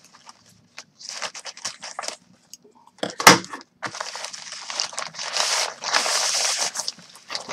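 Plastic mailer bag being cut with scissors and pulled open, its film crinkling and crackling. There is a sudden loud crack about three seconds in, followed by a long stretch of steady crinkling as the bag is worked apart.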